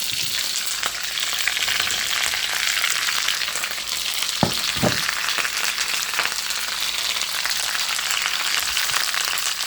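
Vegetables stir-frying in a hot wok, a steady crackle and sizzle, with two sharp knocks about halfway through.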